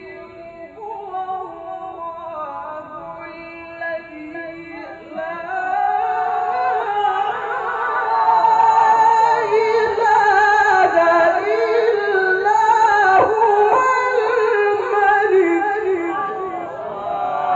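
A Quran reciter chanting a tilawah in long, ornamented held notes that waver and glide in pitch, growing louder and fuller about six seconds in.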